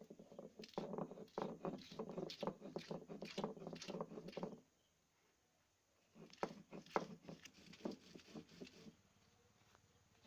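A stone muller is worked back and forth over a flat grinding stone, crushing spices and onions with quick, gritty stone-on-stone scraping and knocking strokes. It comes in two spells, with a pause of about a second and a half after about four and a half seconds.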